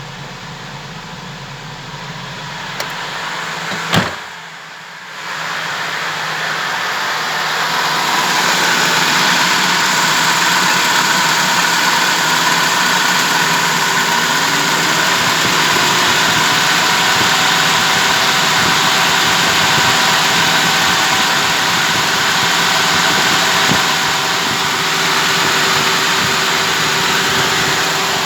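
ZMZ-406 four-cylinder petrol engine of a GAZelle van running steadily. A single sharp knock comes about four seconds in, and from about eight seconds on the engine is louder and holds steady.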